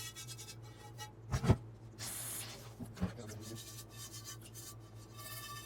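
Steel wool scrubbing over a Wagner Ware cast iron skillet, rubbing stripped seasoning and rust off toward bare metal, with a dull thump about one and a half seconds in.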